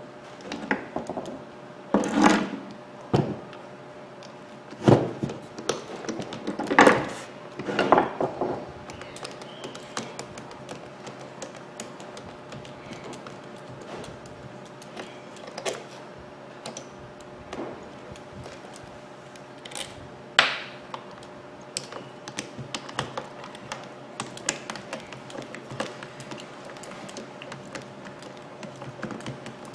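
Hand-tool work on a Makita hammer drill: a screwdriver backing out the screws of its metal housing, with knocks as the drill is shifted and set down on a wooden bench. There are about five loud knocks in the first eight seconds and one more about twenty seconds in, then a run of light ticks and clicks from the screwdriver.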